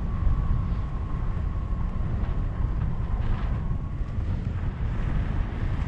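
Wind rushing over the microphone of a paraglider pilot's camera in flight, a steady low buffeting rumble. A faint steady high tone sits under it for the first two-thirds and then stops.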